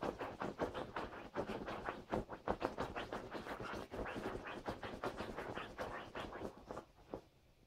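Border collie puppy's front paws digging and scratching rapidly at a cotton duvet, quick rustling strokes several a second, dying away near the end.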